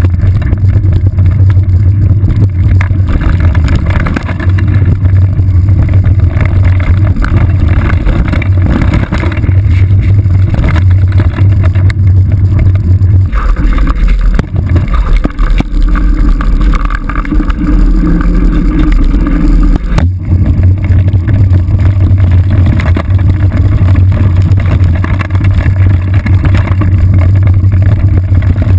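Mountain bike riding a rough dirt trail, heard through a GoPro HD2 mounted at the saddle: a loud, steady low rumble of ground and frame noise. The rumble drops lower for several seconds midway, and a sharp knock comes about twenty seconds in.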